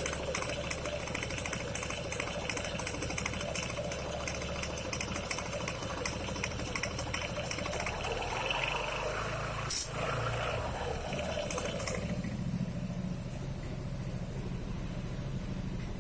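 Kymco Xciting 300Ri scooter engine running, with a rattling noise as the centrifugal clutch engages; the owner asks whether this noise is normal. The rattle stops about twelve seconds in, leaving a smoother engine sound. There is a single sharp click about ten seconds in.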